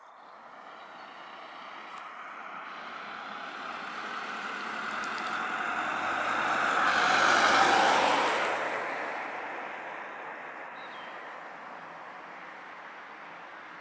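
A vehicle passing by: a rushing noise that swells slowly to its loudest about eight seconds in, then fades away.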